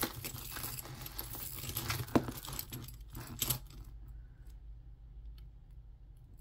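Metal costume jewelry jingling and clinking as gold-tone bangle bracelets and chains are handled, with a few sharper clicks in the first few seconds, then only faint small sounds.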